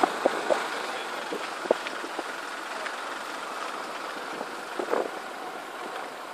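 Car driving along a road: steady engine and road noise, with a few light knocks near the start and again about five seconds in.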